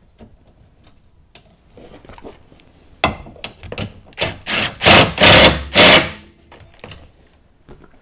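Milwaukee M18 cordless impact tool hammering in several short bursts on a bolt. It starts sharply about three seconds in and is loudest in the last bursts, just before the middle of the second half.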